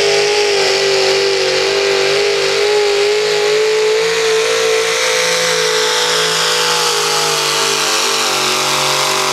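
Modified pulling tractor's engines running flat out under load as it pulls the weight sled, holding a steady high-revving note that dips slightly near the end.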